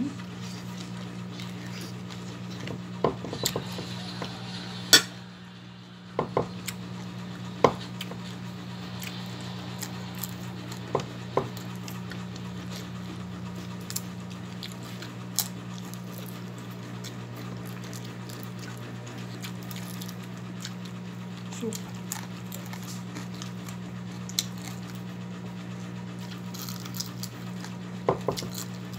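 Eating at a table: a metal spoon clinking now and then against an enamel plate, with chewing, over a steady low hum.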